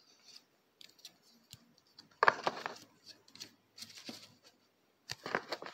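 A stack of trading cards being flipped through by hand: light ticks as card edges catch, and a few brief swishes of one card sliding off another, about two, four and five seconds in.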